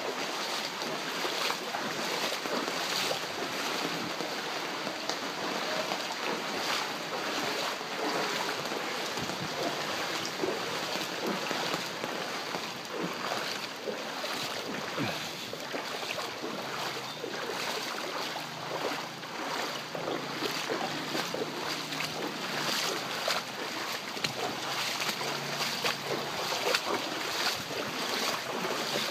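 Torrential rain pouring steadily onto a flooded street: a continuous dense hiss, flecked with the patter of individual drops.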